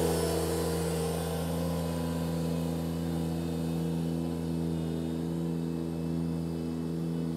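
Ventrac compact tractor's engine running at a steady, even pitch as the tractor drives forward pushing a leaf plow across the lawn.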